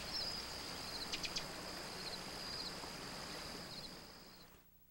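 Forest creek ambience: water flowing with a steady rush, small bird chirps, and three quick sharp clicks about a second in. It fades out near the end.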